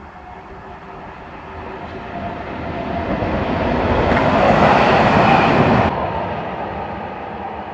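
Freight train passing close below: the rumble of locomotive and wagons on the rails builds steadily to its loudest about four to six seconds in. A hiss then cuts off suddenly, leaving a quieter rolling rumble of the wagons.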